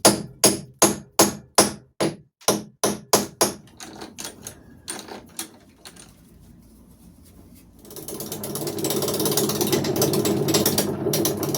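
A run of sharp clicks, about two or three a second for the first few seconds, as the workpiece is set up on the wood lathe. About eight seconds in, the wood lathe starts up and keeps running with a steady hum and rushing noise.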